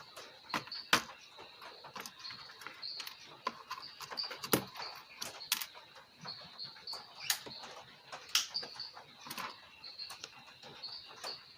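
Scattered sharp clicks and taps from small phone parts and tools being handled, the loudest about a second in and again about halfway through, over a steady high chirping in the background.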